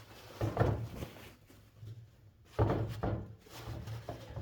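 Handling noises: two dull knocks, about half a second in and again about two and a half seconds in, with some rustling between, as the box fan's motor housing is shifted on the bench and packed with paper towel.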